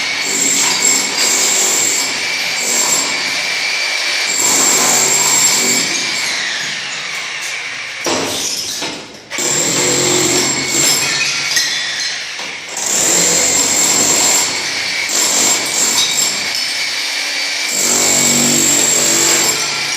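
Electric power tool running in long stretches with a steady high whine. Its pitch sags briefly about six seconds in, and it nearly stops for a moment about nine seconds in.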